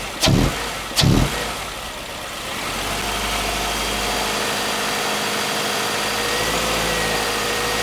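A 2012 Subaru Forester's flat-four engine running in gear. Two sharp knocks come in the first second, then the engine gets louder about two and a half seconds in and holds steady, without the pinging rattle it is being tested for: on premium fuel the rattle cannot be reproduced.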